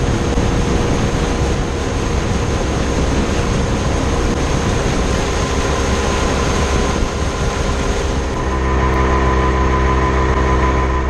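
Speedboat with a Yamaha 70 hp outboard running fast and planing: a steady rush of wind and water over the engine's drone. About eight seconds in, the outboard's steady, even engine note comes to the fore.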